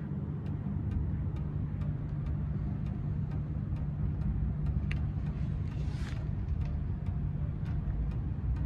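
Mercedes W140 S320L's engine running steadily, a low even hum.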